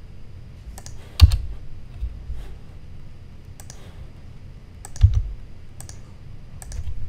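Scattered keystrokes and mouse clicks at a computer: about eight separate clicks spread unevenly over several seconds, two of them heavier with a dull thud under the click.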